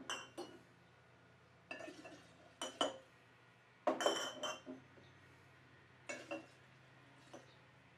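Glass mason jars clinking and knocking against one another, the table and a large glass jug as they are picked up and emptied into it: about six short clinks, each with a slight glassy ring.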